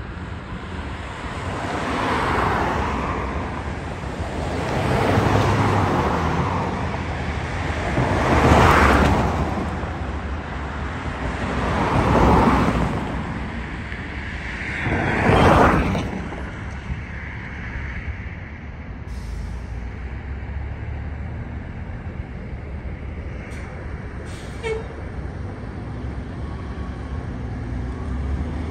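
Street traffic: five vehicles pass close by one after another, each a rise and fall of tyre and engine noise. After that comes a steadier low rumble of engines idling, a city transit bus among them.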